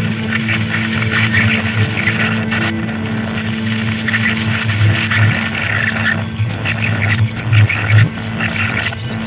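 Experimental noise music: a steady droning hum under an irregular low throbbing pulse, overlaid with dense, scratchy clattering noise.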